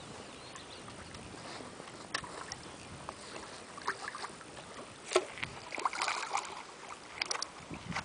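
Water splashing as a large hooked fish thrashes at the surface, a few sharp splashes in the second half over a steady outdoor hiss.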